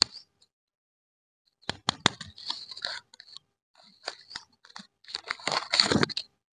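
Paper wrapper of a chew lollipop being crinkled and peeled open by hand: clusters of sharp crackles and small tears that start about a second and a half in, ease off briefly, and are loudest near the end.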